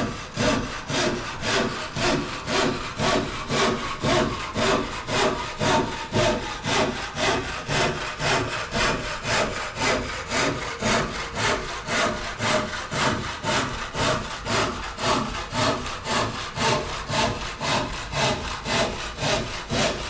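Hand saw cutting through a timber door lining, held flat against the face to trim it flush, in steady back-and-forth strokes about two a second.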